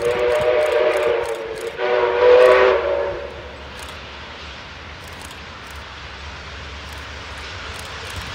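Steam locomotive 5917's whistle, a Baldwin-built NSW 59 class engine, sounding two blasts of several tones at once. The first lasts about a second and a half and the second, slightly louder, about as long. After that only a faint low rumble of the approaching train is left.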